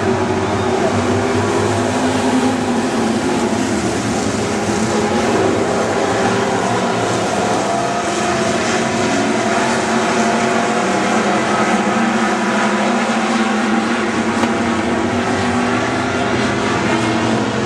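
A pack of dirt-track stock cars racing on a dirt oval, many engines running hard together in a steady, dense drone whose pitch rises and falls as the cars go through the turns.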